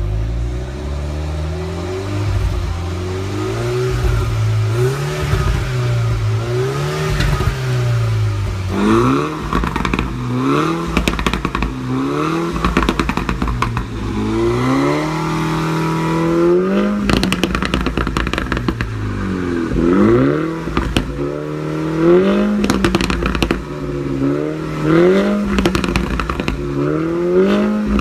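2016 MINI John Cooper Works exhaust, its 2.0-litre turbocharged four-cylinder revved repeatedly while standing still. The revs rise and fall slowly at first, then in quick blips about every two seconds, with pops and crackles as the revs drop.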